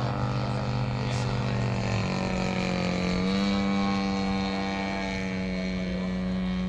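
Engine of a large radio-controlled Piper Cub model airplane flying overhead, a steady engine note that rises in pitch about two to three seconds in and then holds at the higher pitch.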